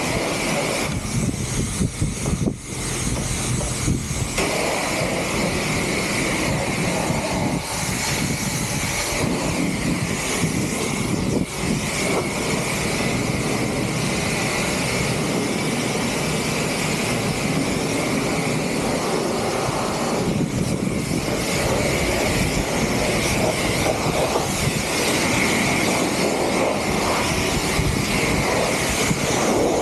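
Continuous loud rushing noise with a steady high-pitched whine, like a machine running flat out.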